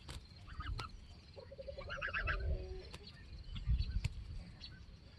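Goose grazing, with a few sharp clicks as its bill plucks grass. Near the middle comes a short run of quick, soft calls, over a low rumble.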